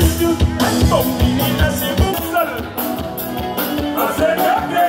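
Upbeat live band music: a singer over electric guitar, horns and a steady kick-drum beat.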